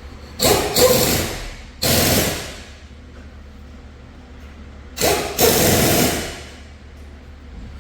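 Three short bursts from an air tool working on the transmission teardown, each about a second long, with quiet gaps between.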